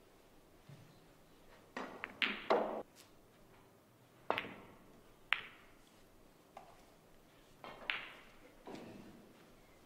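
Snooker balls clicking: the cue strikes the cue ball, which hits another ball, then several more sharp clicks and softer knocks as the balls meet each other and the cushions.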